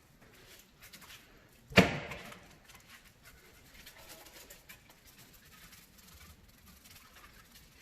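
A single sharp knock about two seconds in, amid faint rubbing and scraping.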